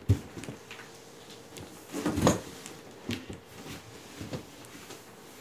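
A large cardboard shipping box being handled: a sharp knock at the start, a louder bump and rustle of cardboard about two seconds in, then a few lighter knocks.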